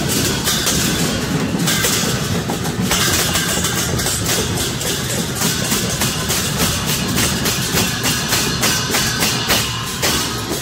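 Newar dhimay barrel drums and large hand cymbals played together in a fast, continuous rhythm, with the cymbals clashing densely over the drumbeats.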